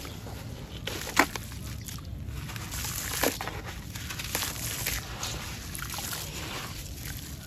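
Hands squeezing and crumbling a water-soaked sand chunk in a tub of muddy water: wet, gritty crumbling with water sloshing and trickling. There is a sharp splash about a second in and another about three seconds in.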